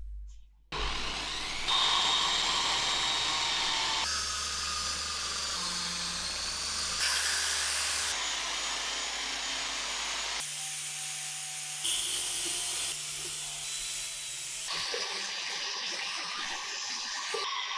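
Handheld electric polisher with a foam buffing pad running steadily while it buffs polishing compound over painted sheet-metal motorcycle panels. The whirring changes abruptly every couple of seconds, as short clips follow one another.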